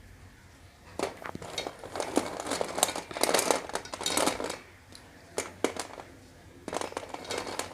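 Packaging of a pack of slate pencils crinkling and rustling as it is handled, in several stretches, with two sharp clicks in between.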